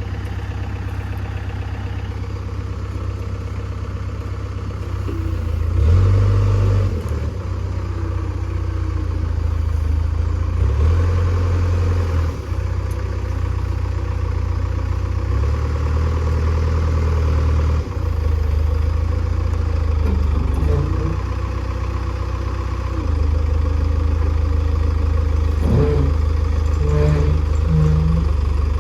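An engine running steadily, its load rising and falling every few seconds, with some clattering now and then.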